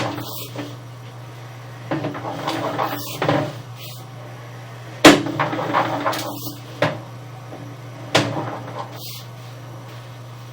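Sewer inspection camera and its push cable knocking and clattering along a drain pipe, with several sharp knocks over a steady low hum.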